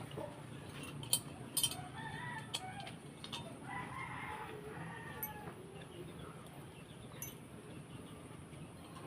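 Chickens clucking and a rooster crowing faintly, with a few sharp knocks about a second in.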